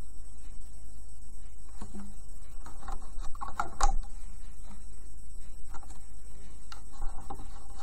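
Small clicks and taps of rubber loom bands being stretched by hand onto the plastic pins of a loom, scattered and faint, over a steady low hum.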